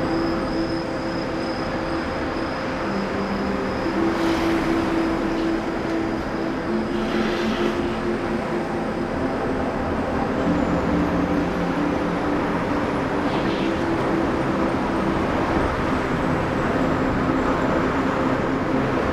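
Steady running noise of a moving vehicle heard from a roof-mounted camera: road and wind rumble, with a humming tone that holds and steps between a few pitches, and brief hissing swells about four, seven and thirteen seconds in.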